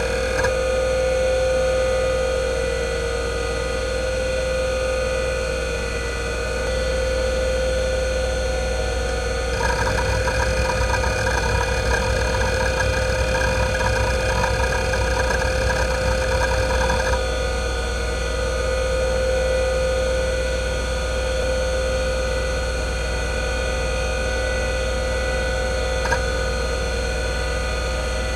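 IBM WDA-L42 40MB 3.5-inch IDE hard drive (single platter, 3600 rpm) spinning with a steady whine while running a SpinRite 6.0 random-access benchmark. From about ten seconds in to about seventeen, a dense stretch of rapid head-seek chatter sits over the whine, and there is a single click near the end.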